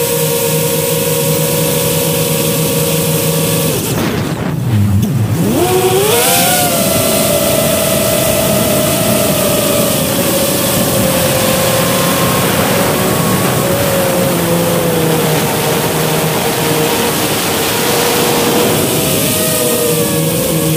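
5-inch FPV quadcopter's brushless motors and propellers whining, with a steady hiss underneath. About four seconds in the pitch drops steeply as the throttle is chopped, then shoots back up in a quick rising whine as it is punched, and settles into a steady, slightly wavering whine.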